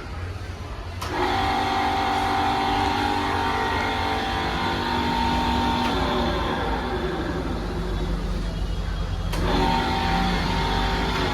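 Electric motor of a PRAGA 411 tool and cutter grinder running with a steady hum over a low rumble. The hum cuts in sharply with a click about a second in, and drops out briefly with another click near the end.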